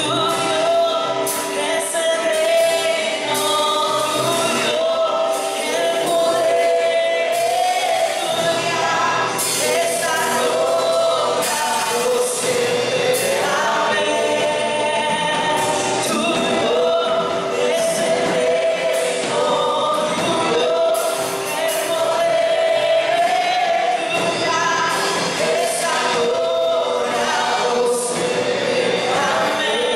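Live gospel worship song: a woman sings the lead, with other voices joining, over electric guitar and congas with a steady beat.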